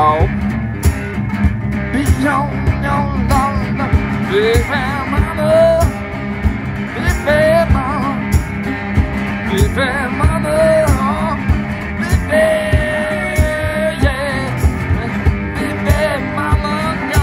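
Live solo blues on a metal-bodied resonator guitar, with gliding, bending melody notes over a steady beat.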